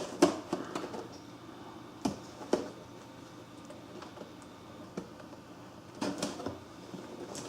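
Cardboard packaging being handled and opened, a few short knocks, clicks and scrapes spread across several seconds.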